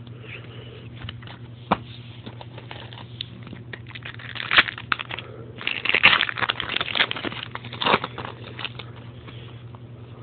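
Trading cards being handled and sorted by hand: papery rustling and crinkling in bursts through the middle, with one sharp click about two seconds in.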